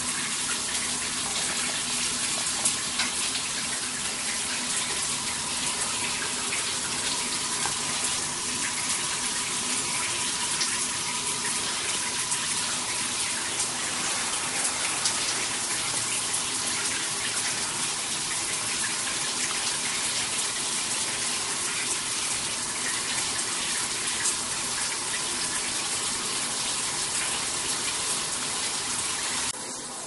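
Instantaneous LPG water heater running with its burner lit and water flowing through it: a steady rushing hiss that turns quieter near the end.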